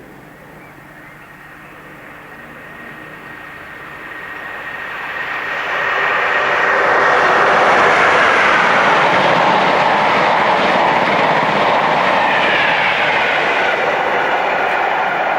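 Electric express train approaching and passing at speed: a rush of wheel and rail noise that builds over a few seconds and then stays loud, with whines falling in pitch as it goes by.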